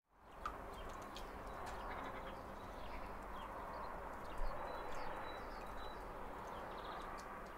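Faint background ambience: a low steady hiss with scattered short, high chirps and a few light clicks.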